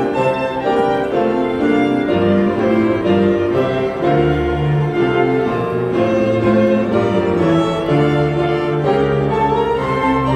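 Small church orchestra of violins and other strings with piano playing a Christmas carol in held, flowing notes. A lower bass line comes in about two seconds in.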